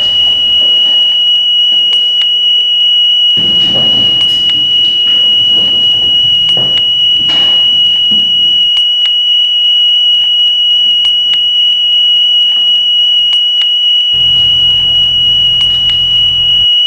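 Electronic alarm giving one loud, steady, high-pitched tone without a break: the alarm signal for an earthquake drill. Fainter shuffling and movement sounds come and go in the first half.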